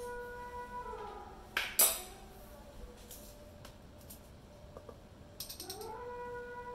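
A cat meowing: one long meow that rises, holds and then trails off about a second in, and a second one starting near the end. Between them comes a sharp clatter of something hard about two seconds in, the loudest sound here, and a few light clinks about five and a half seconds in.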